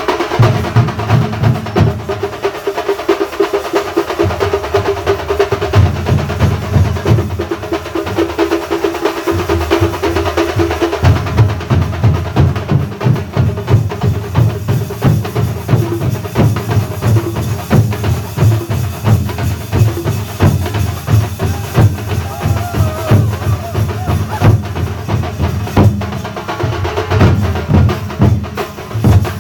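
Thambolam melam: a Kerala drum ensemble playing a fast, driving rhythm on large thambolam drums, with a held melody line over the drumming in the first third.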